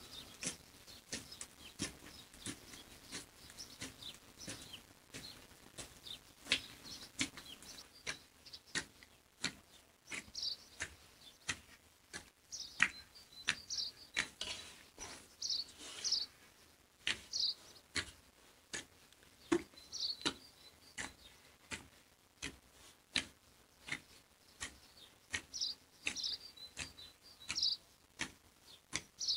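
Hands kneading a large batch of bread dough in a metal basin: a steady run of short slaps and presses, about one or two a second. Birds chirp briefly now and then.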